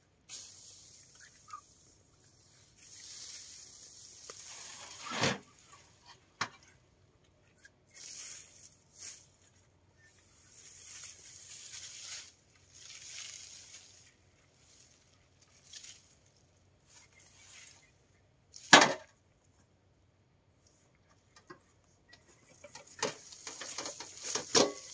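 Rustling swishes of pulled weeds and grass being gathered with a long-handled garden tool and loaded into a metal wheelbarrow, with a few sharp knocks, the loudest about three-quarters of the way through, and a quick run of clattering knocks near the end.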